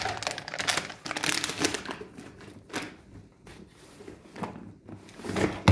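Crinkly plastic packet being twisted and pulled in the hands, rustling in irregular bursts; it is too tight to open. A loud thump near the end.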